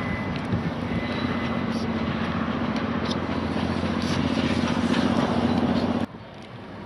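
A vehicle running steadily with a low hum, growing louder, then cut off abruptly about six seconds in.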